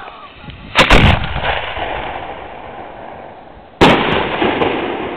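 A 75 mm aerial firework shell: a sharp bang as it is fired from its mortar about a second in, then, nearly three seconds later, the loud crack of the shell bursting, followed by a long fading rumble of echo.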